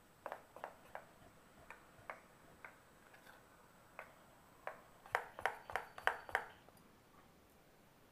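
Light metallic clinks on a stainless steel mixing bowl as thick batter is stirred. There are scattered single clicks at first, then about five seconds in a quicker run of louder clinks, about three a second.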